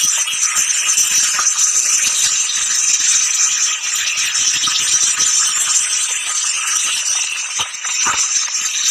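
Many motorcycles riding past in a dense stream, heard as a loud, steady rattling hiss with almost no low rumble.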